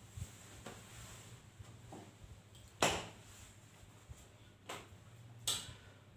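Handling noise of a person shifting in a chair and moving things at a desk: about half a dozen short knocks and rustles, the loudest nearly three seconds in, over a faint steady hum.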